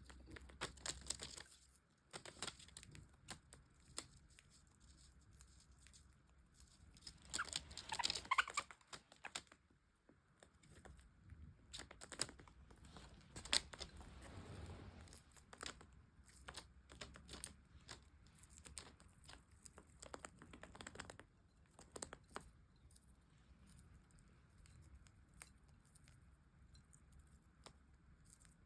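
Pet budgerigar pecking and chewing, a faint scatter of small clicks, crunches and tearing rustles, with a brief chirp about eight seconds in.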